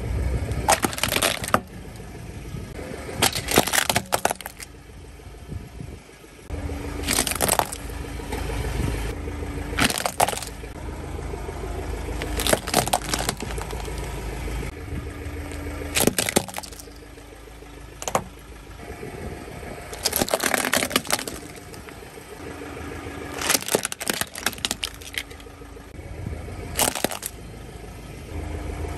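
Plastic toy cars cracking and snapping under a car tyre as it rolls over them, in about ten sharp bursts spread through, over the low rumble of the car's engine running.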